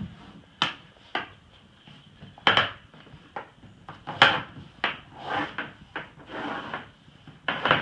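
Hands working a kayak's anchor trolley line: about half a dozen sharp, irregular clacks and knocks of the rope's ring and hardware against the plastic hull, loudest about four seconds in, with rope rubbing and sliding along the hull in between.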